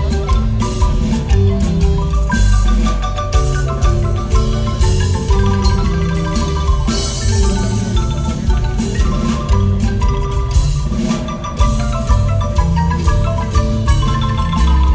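Marimba music: many quick mallet-struck notes over a steady deep bass line.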